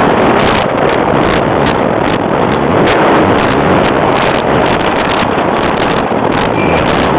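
A wooden roller coaster train running along its track: a steady rush of wind buffeting the microphone over the rumble of the wheels, with a fast, irregular clatter of wheels over the wooden track.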